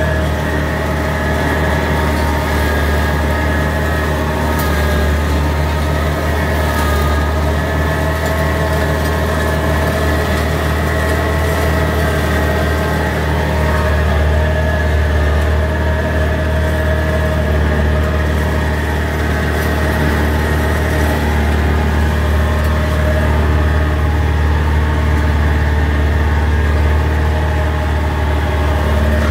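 Antonio Carraro TC5800F compact tractor running steadily while it powers an offset flail mower through cut grass, heard from inside the cab. Its engine drone is low and even and does not change throughout.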